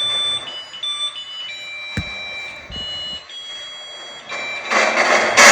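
Electronic alarm tones from a ghost-hunting sensor device, stepping between several high pitches in a shifting pattern. A sharp click comes about two seconds in, and a loud rushing hiss builds near the end.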